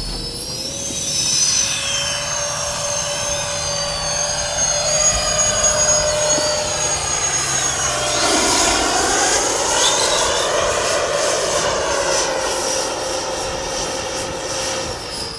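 Electric ducted fans of a radio-controlled VTOL jet model running with a steady high whine as the model takes off and flies. The sound shifts and sweeps as the model passes, about halfway through.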